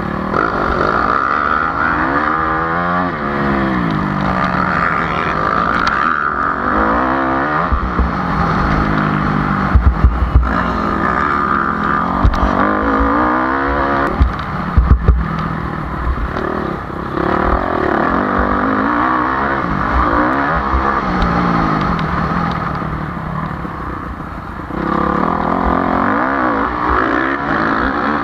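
2009 HM CRE 250 F four-stroke single-cylinder dirt bike engine heard from onboard, its revs repeatedly rising and falling as the rider accelerates, shifts and backs off along the track. A few loud thumps come through between about ten and fifteen seconds in.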